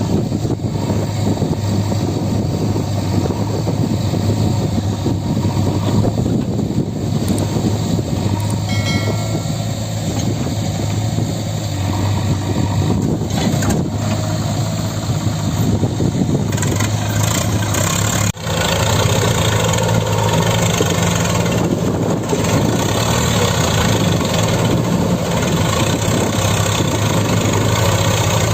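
Heavy diesel machinery engine running steadily. About two-thirds of the way through, after a brief dip, its note steps up and gets a little louder, as if revved under load.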